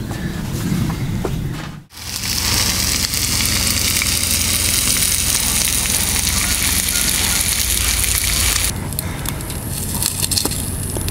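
Food sizzling in a frying pan over a remote-canister gas camp stove: a steady hiss that starts suddenly about two seconds in. Near the end it gives way to a wood fire crackling and popping in a fire ring.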